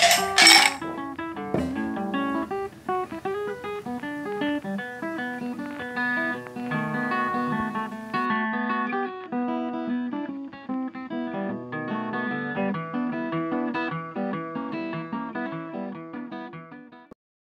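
Background music of plucked guitar over a bass line, cutting off abruptly about a second before the end. A brief loud noisy burst sounds right at the start.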